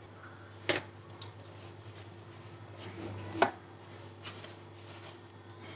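Hand mixing flour and water into dough in a plastic bowl: two sharp knocks, about a second in and near three and a half seconds, with fainter ticks and soft rubbing between, over a low steady hum.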